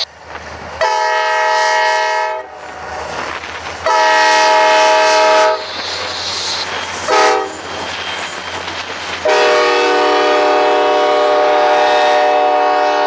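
Diesel freight locomotive's air horn sounding the grade-crossing signal: two long blasts, a short one, then a final long blast still held at the end. Each blast is several notes sounding together.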